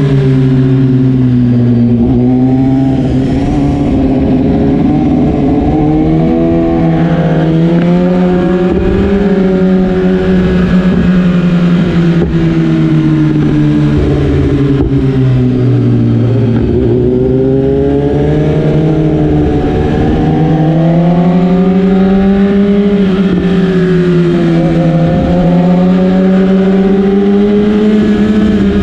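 BMW S1000RR's inline-four engine pulling in second gear, its pitch rising and falling several times as the throttle is rolled on and off.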